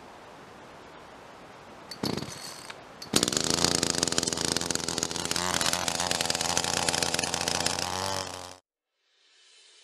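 Electric power tool briefly started, then running steadily with a buzzing motor for about five seconds before its pitch drops as it winds down and stops.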